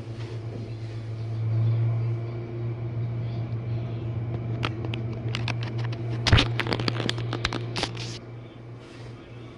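Jenn-Air dishwasher running with a steady low motor hum. Midway there is a cluster of sharp clicks and knocks, the loudest a single thump.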